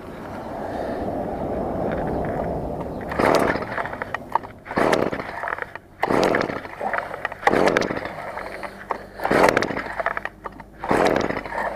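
Stihl FS 55 brush cutter's two-stroke engine cranked by its recoil pull-starter, about six pulls roughly a second and a half apart, each a short burst that rises and falls, without the engine running on between pulls. It is failing to start, which the caption puts down to too much fuel reaching the spark plug.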